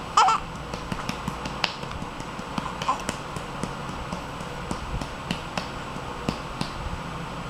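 A baby being burped: a short, high vocal sound from the baby right at the start and a fainter one about three seconds in, over a run of soft, irregular pats.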